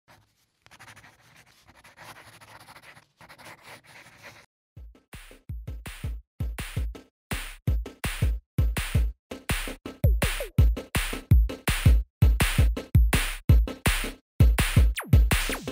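Upbeat electronic background music with a drum-machine beat that comes in about five seconds in and builds in loudness, after a few seconds of faint noise.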